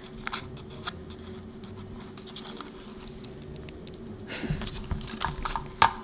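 Small, irregular clicks and scrapes of a screwdriver working the little screws of a Furby's plastic casing, with a cluster of clicks about four and a half seconds in and one sharp click near the end, over a faint steady hum.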